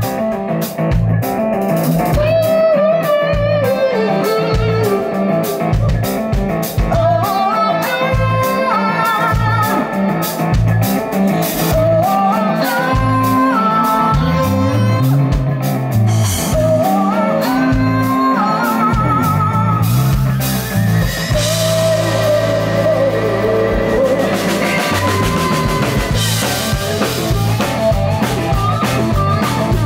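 Live rock band playing with electric guitar, bass guitar and drum kit. A lead melody line bends and wavers in pitch over a steady drum beat.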